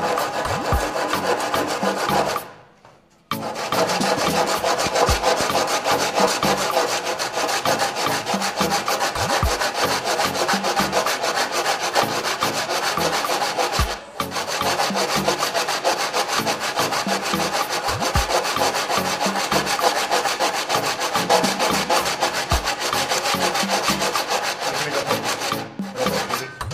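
Hand saw crosscutting a softwood board, a fast run of rasping push-and-pull strokes. The sawing stops for about a second some two and a half seconds in, then carries on, with one more brief break about halfway through.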